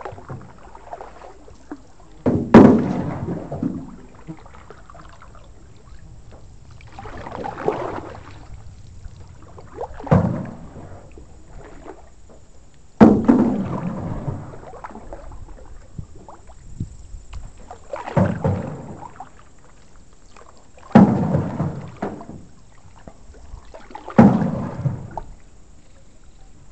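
Canoe paddles working through the water in about seven separate strokes a few seconds apart, each a short swish and wash of water, several starting with a sharp knock against the aluminum canoe.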